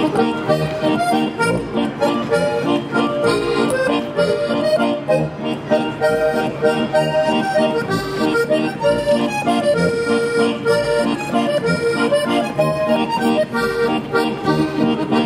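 Traditional German folk dance music led by an accordion, playing with a steady, even beat.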